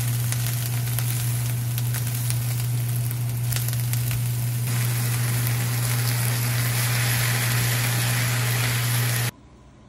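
Shredded cabbage stir-frying and sizzling in a hot nonstick frying pan, with a spatula clicking and scraping against the pan and a steady low hum underneath. The sizzle cuts off abruptly near the end.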